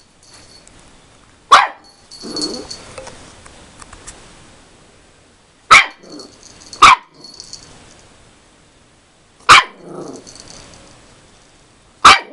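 Yorkshire terrier puppy barking at his own reflection in a mirror: five sharp single barks spaced a second to four seconds apart, with quieter low growls after several of them.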